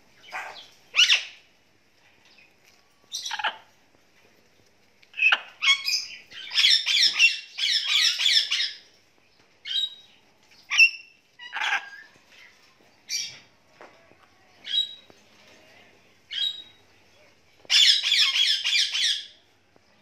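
Pet parrots calling: short squawks and whistles scattered throughout, with two longer runs of rapid, harsh chattering, one in the middle and one near the end.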